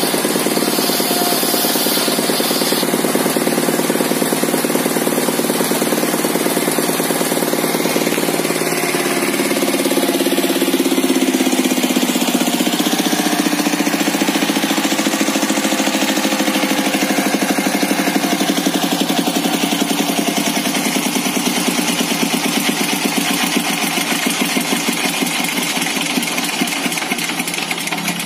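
Stationary engine running steadily and driving a sawmill's large circular saw blade through a belt, the blade spinning without cutting. The sound grows gradually quieter over the second half, its beat becoming more distinct.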